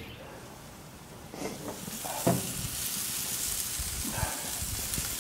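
Country-style pork ribs sizzling on a hot gas grill's grate. The sizzle swells about a second and a half in as the grill lies open, with a few knocks of metal on the grill along the way.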